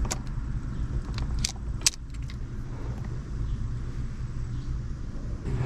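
A few sharp light metallic clicks and clinks from tools and wiring being handled, over a steady low hum.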